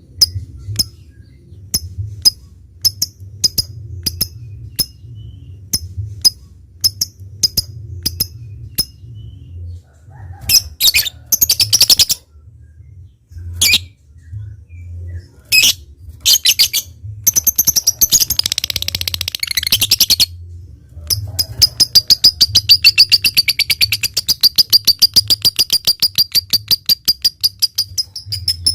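Lovebird calling: a run of sharp, separate chips about two a second (the 'ngetik' call), then chattering bursts. From about two-thirds of the way in comes a long, rapid, evenly spaced rattling trill (the long 'ngekek' call).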